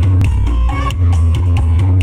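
Loud music with a heavy, booming bass line and a drum beat, played through a huge 'sound horeg' carnival sound system.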